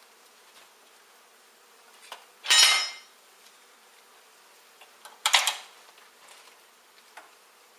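A honey bee colony buzzes faintly and steadily. Two short, loud clattering scrapes come about two and a half and five seconds in, the first with a slight metallic ring, from tools and comb being handled.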